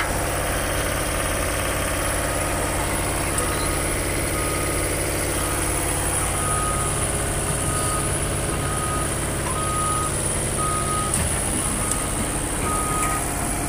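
Heavy diesel engine idling steadily. From about three seconds in, a reversing alarm beeps about once a second on one steady pitch.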